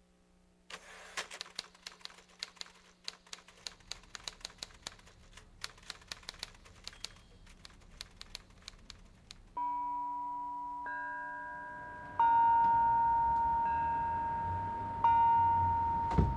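Typewriter keys clacking in a quick, irregular run for about nine seconds. Then four struck, bell-like musical chords, each starting suddenly and slowly ringing away.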